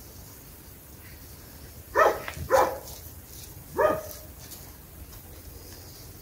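A dog barking three times: two quick barks about half a second apart, then a third just over a second later that drops in pitch at its end.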